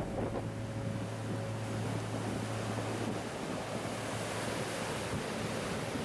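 Atlantic surf breaking and washing over rocks in a steady rush, with wind buffeting the microphone. A low steady hum fades out about halfway through.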